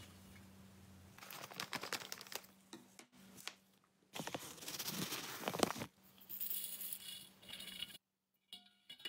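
A stream of liquid pouring into a steel bowl. Then small hard beads clatter and rattle in several rushes as they are poured, with a few light clinks near the end.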